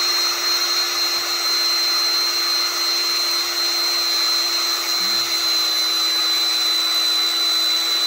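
Bosch 18 V cordless drill running at one steady speed with a level whine, working a small die-cast toy car part held by hand. The drill is running out of a little power.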